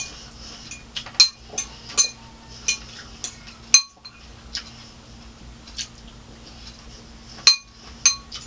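A metal fork clinking and scraping against a clear cup as food is picked out of it: a string of sharp, irregular clinks, about a dozen over several seconds.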